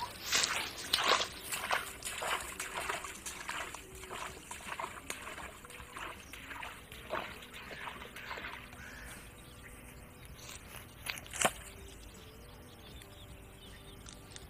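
Irregular rustling and crackling steps through grass and brush, dense at first and thinning out, with one sharp snap about eleven seconds in.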